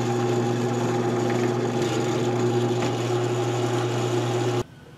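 Drill press running with a steady hum while drilling a half-inch lead hole into a carved wooden lure body. The hum cuts off suddenly near the end.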